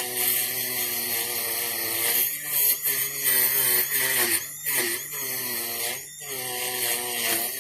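Small handheld rotary tool running against a die-cast metal toy body, with a hiss from the bit on the metal. Its pitch wavers and briefly drops a few times as it bears on and lifts off the casting.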